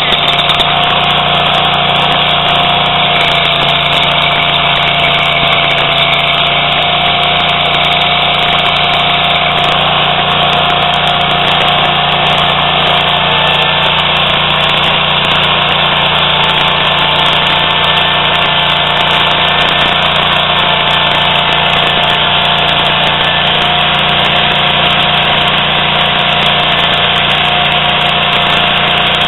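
Toro STX-26 stump grinder's engine running steadily at a constant speed.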